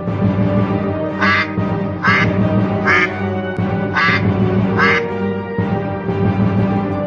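A white domestic duck quacking five times, short quacks about a second apart, over background music.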